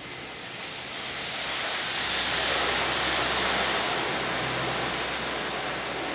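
Automatic car wash equipment heard from inside the car's cabin: a steady rushing noise that swells about a second in and then eases slightly.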